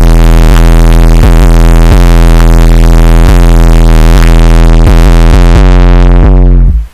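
Song outro played at extreme, clipping loudness: one heavily distorted synth bass line with no vocals, gliding from note to note every fraction of a second. It cuts off sharply just before the end.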